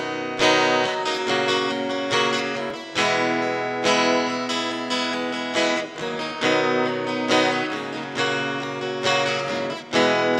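Solo acoustic guitar strumming chords in a steady rhythm, with a strongly accented stroke every second or less.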